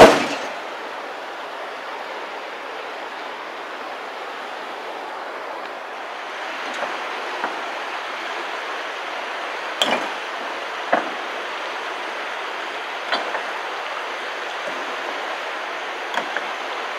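Steady rush of shallow river water, with one loud knock right at the start. From about six seconds in, a scattering of sharp knocks comes as rocks are dropped into the steel tipper bed of a ZIL-164 dump truck.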